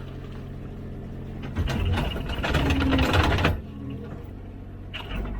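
Komatsu PC16 mini excavator's diesel engine running steadily, with a louder two-second stretch of rattling and grinding from the digging about a second and a half in, and a brief shorter burst near the end.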